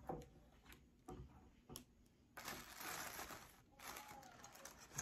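Quiet room with faint handling sounds: a few light clicks and a soft rustle lasting just over a second a little past the middle.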